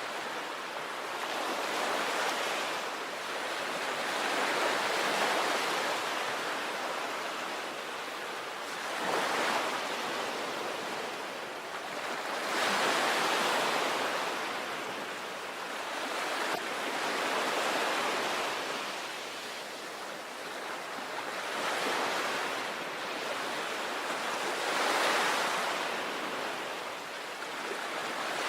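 Sea waves breaking and washing onto the shore, a steady rushing surf that swells and ebbs with each wave, about one swell every four seconds.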